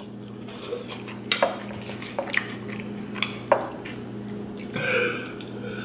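Eating at a plate: a metal fork clicks and scrapes against the plate about five times while saucy noodles are chewed, over a steady low hum.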